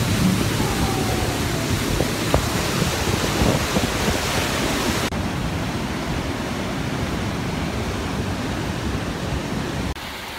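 Nevada Fall and the Merced River's white water rushing steadily, a dense hiss of churning water; the sound shifts abruptly about halfway through and drops in level just before the end.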